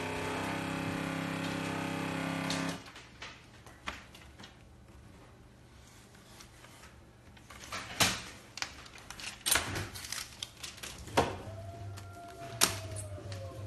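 Background music that cuts off abruptly about three seconds in, followed by scattered sharp clicks and knocks of a phone screen and small tools being handled on a repair bench. A faint tone slides downward near the end.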